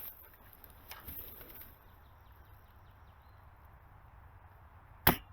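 M24 bolt-action airsoft sniper rifle firing one sharp shot near the end, a hit that takes out an opponent. A couple of quieter clicks and a brief hiss come in the first two seconds.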